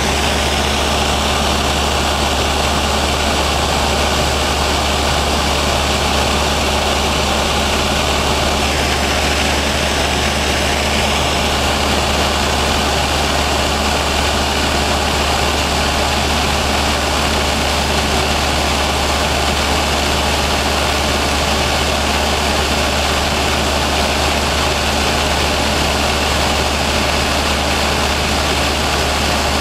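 Luscombe light aircraft's piston engine and propeller droning steadily in cruise flight, heard from inside the cabin.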